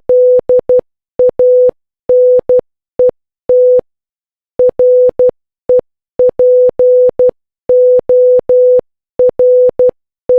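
A single electronic beep tone keyed on and off in short and long beeps with uneven gaps, in the rhythm of Morse code.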